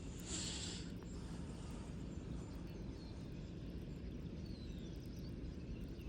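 Outdoor background with a steady low rumble, a short hiss about half a second in, and faint high bird chirps scattered through.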